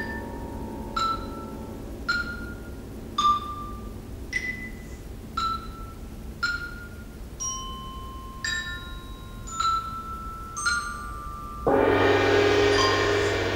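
Percussion ensemble playing slowly: single high, bell-like mallet notes on metal keyboard percussion, about one a second, each ringing briefly. Near the end a loud stroke breaks in and keeps ringing, with a deep low tone under it.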